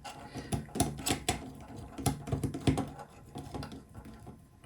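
Light, irregular clicks and taps of small hardware being handled by hand: a nut being spun onto a bolt and robot chassis parts knocking together, with a few sharper clicks in the first three seconds.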